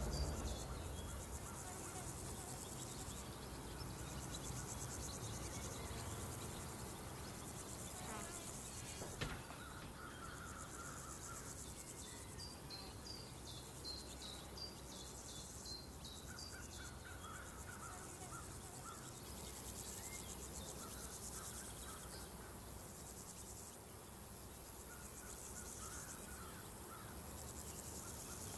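Field ambience of a chorus of crickets and other insects, a steady high pulsing hiss, with clusters of short high chirps. About two-thirds of the way through the high insect hiss steps up louder.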